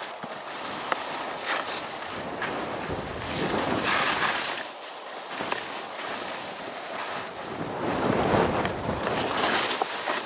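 Skis sliding and scraping over snow with wind rushing across the camera's microphone: a rising and falling hiss that swells about four seconds in and again near the end, with a few small clicks.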